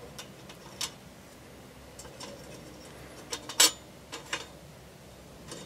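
Scraps of rusty sheet steel being set down and shifted on the top of a Firebox folding steel stove: a few light metal clinks and taps, the loudest a little past halfway.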